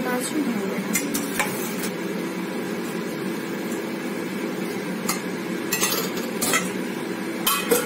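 Metal spatula stirring in a metal kadai, knocking and clinking against the pan a number of times, the loudest knocks in the second half, over a steady low hum.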